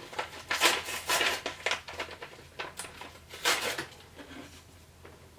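Jerky pouch crinkling as it is handled and pulled open, in two bursts of rustling, the second shorter.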